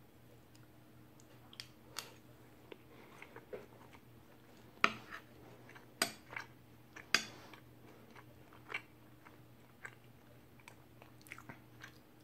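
Someone chewing a mouthful of egg fried rice, with a metal spoon clinking and scraping on a ceramic plate as more rice is scooped. A few sharp clinks stand out around the middle.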